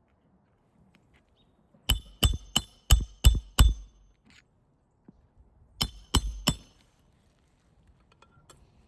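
Hammer blows on metal with a ringing clink: six quick strikes, then a pause and three more, driving roofing nails back into an asphalt shingle.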